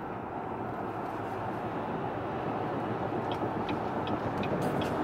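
Steady road and engine noise inside the cabin of a Cadillac Escalade cruising on a highway, with a few faint ticks in the second half.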